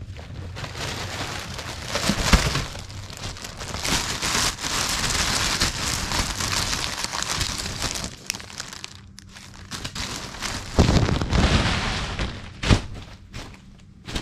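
Water spraying from a shower head in a hotel unit bath, a steady hiss that stops about eight seconds in. A few knocks and thuds follow near the end.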